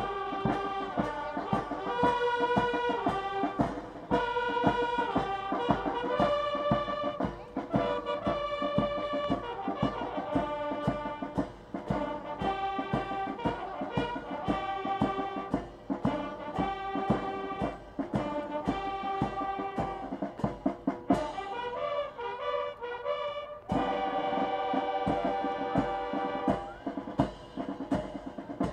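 Massed Japanese Self-Defense Force signal bugles playing a drill piece in harmony over a steady drum beat. A quicker run of notes comes about three quarters of the way through, followed by a long held chord near the end.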